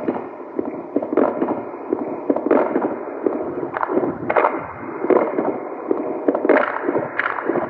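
Small waves lapping and sloshing, with splashy surges coming irregularly about once a second.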